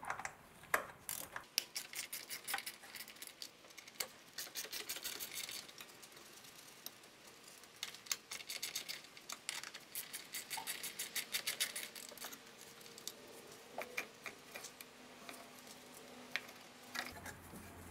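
Faint clicking and small metal rattles of a T27 Torx bit being worked on a fastener and the car's alarm siren and its cover plate being handled and loosened, in scattered clicks and quick runs of clicks.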